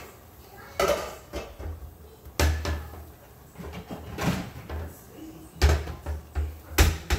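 Kitchen clatter as a glass pot lid is fetched: about five sharp knocks and bangs of cookware and cupboard doors, spread over several seconds.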